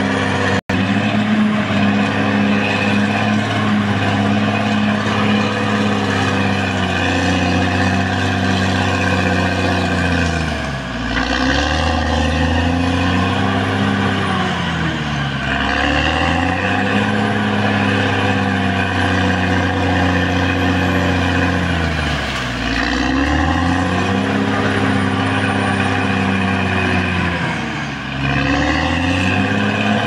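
Caterpillar D6R XL bulldozer's diesel engine running hard, its speed dipping and picking back up four times. A faint high whine rises and falls with it.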